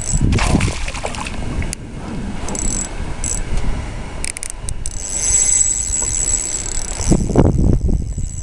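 Wind buffeting the microphone over choppy lake water, a loud, uneven low rumble. A thin high whine comes in about five seconds in.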